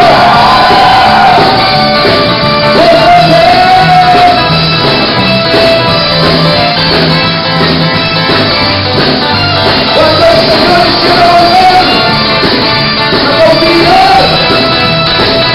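A song playing loudly, with a singing voice over a full band accompaniment.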